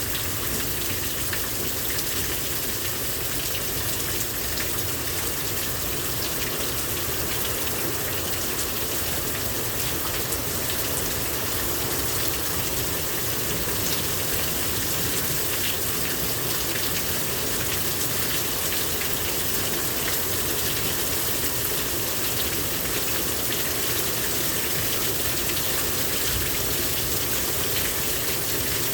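Heavy rain pouring down steadily, a dense even hiss with patter of drops on surfaces.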